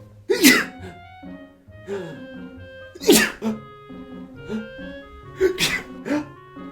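A person sneezing loudly three times, about two and a half seconds apart, with smaller breathy sounds between the sneezes, as comic acted sneezes. Light background music plays under them.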